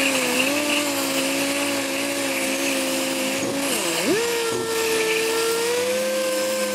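Dual-action sander with 80-grit paper knocking down the high spots of hardened body filler on a car panel: a steady whine that dips briefly about four seconds in, then settles back.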